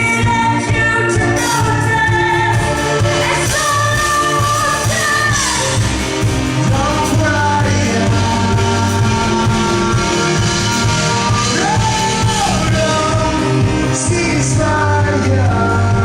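A live band performs with a singer holding long notes and sliding between them over the full band.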